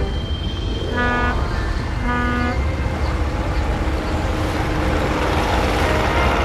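A boat horn gives two short toots about a second apart, over a steady low rumble; a hissing wash of noise builds up in the second half.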